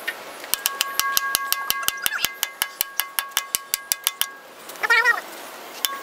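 Ratchet wrench clicking fast and evenly, about six clicks a second with a light ringing, for about three and a half seconds as it turns the bolt on the bucket link pin; then a short cry that rises and falls, about five seconds in.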